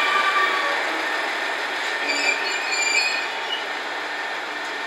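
Train pulling slowly into a station platform, with wheels and brakes squealing. The high squeal fades out in the first second and returns about two to three seconds in, over a steady rumble and hiss of rolling stock.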